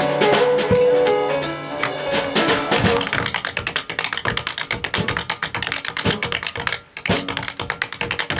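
Jazz from tenor saxophone, piano and drums for the first three seconds, then the held notes stop and rapid tap-shoe taps on the wooden stage fill the rest, with a brief pause a little before the end.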